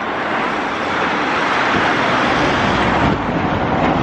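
Steady rushing noise of road traffic passing along a street, swelling slightly about a second in.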